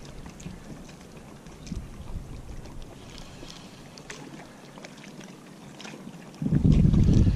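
Wind buffeting the microphone: a low, gusty rumble that starts suddenly near the end and is the loudest sound. Before it, only a faint wind hiss with a few light ticks.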